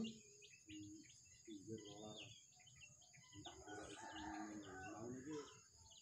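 Young bird chicks peeping: many short, high cheeps in quick succession.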